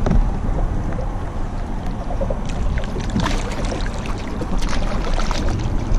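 Wind buffeting the action-camera microphone in a steady low rumble, with water splashing and lapping against a kayak several times.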